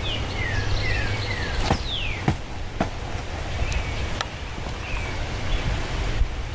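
Outdoor ambience: a steady low rumble of wind on the microphone, birds chirping with a quick run of short falling notes in the first second or so, and a few sharp clicks and rustles of the camera being handled and carried through dry grass.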